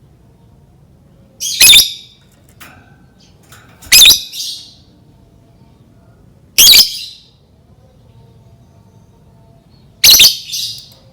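Lovebird giving four short, shrill, harsh calls a few seconds apart. These are agitated ('emosi') calls of the kind played to provoke other lovebirds into calling.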